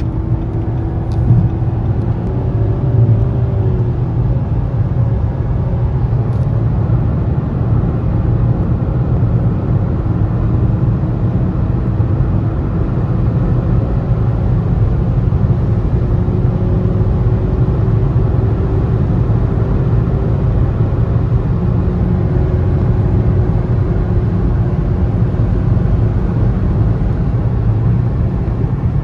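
A car driving at a steady cruise: a constant low rumble of road and engine noise with a faint engine tone that slowly rises and falls in pitch.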